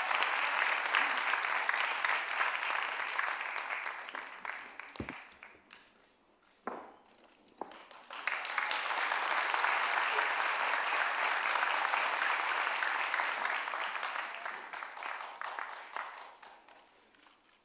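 Audience applauding in two rounds. The first dies away about five seconds in, and a few single claps sound in the lull. Then a second round of applause rises and fades out near the end.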